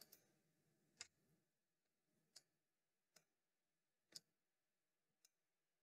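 Near silence broken by a few faint computer mouse clicks, spaced about a second apart.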